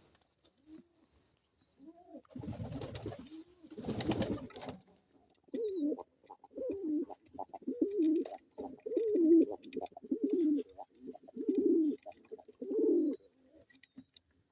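Domestic pigeon cooing, a run of about eight low coos that each rise and fall in pitch, starting about halfway in. Before the cooing come two brief bursts of noise.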